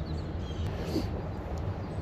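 Birds chirping briefly, about half a second to a second in, over a steady low engine drone of the kind the speaker calls oil field noise.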